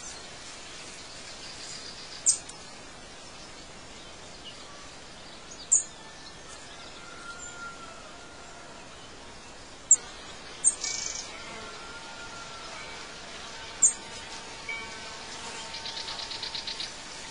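Birds chirping over a steady background hiss, as in an outdoor ambience track: sharp high chirps every few seconds, two close together about ten seconds in, a few faint longer whistles, and a fast trill near the end.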